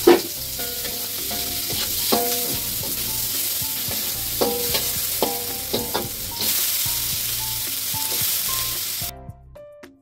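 Chopped chillies, shallots and tomato sizzling in hot oil in a wok, with a metal spatula scraping and clinking against the pan as they are stir-fried. The sizzling cuts off suddenly near the end.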